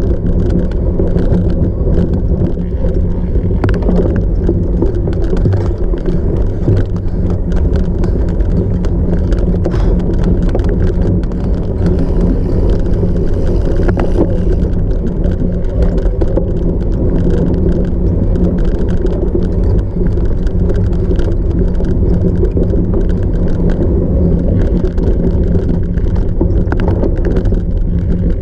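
A cyclocross bike ridden hard over rough off-road ground, with a steady low rumble and frequent rattles and knocks throughout.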